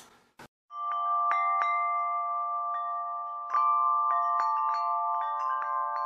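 Wind chimes ringing: many irregular strikes over a sustained cluster of bell-like tones, starting just under a second in.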